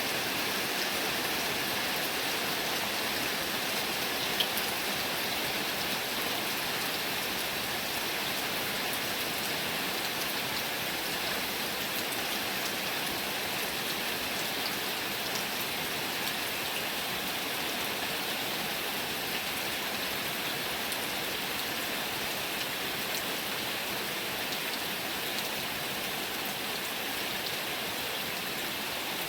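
Heavy rain falling steadily, an even hiss of drops, with one brief sharp tick about four seconds in.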